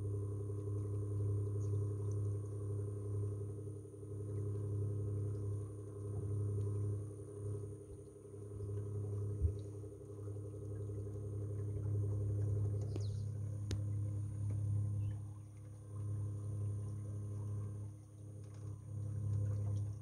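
Electric drive of a solar-powered boat running steadily under way: a low, even hum with a faint high whine above it, swelling and easing a little, and one sharp tick about halfway through.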